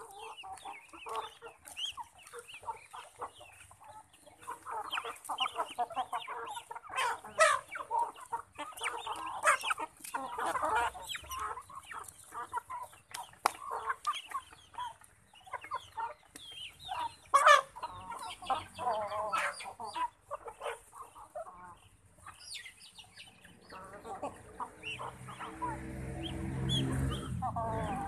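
A flock of chickens clucking while they feed, with many sharp clicks of pecking at the feed pan. A low rumble builds up near the end.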